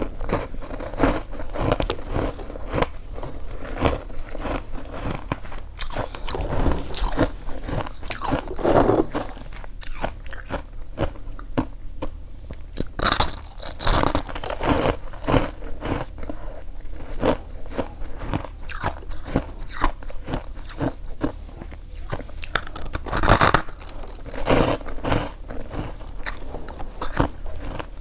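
Close-up biting and chewing of freezer frost: dense, irregular crunching of the packed frost between the teeth, with a few louder crunches.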